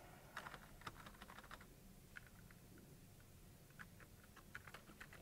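Faint computer-keyboard typing: short runs of key clicks with a pause in the middle, as a terminal command is typed, partly deleted and retyped.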